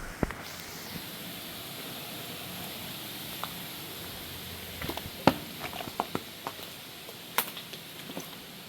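Footsteps and a few sharp clicks and knocks, heard mostly in the second half, as a hiker picks his way over debris. Behind them runs a steady hiss.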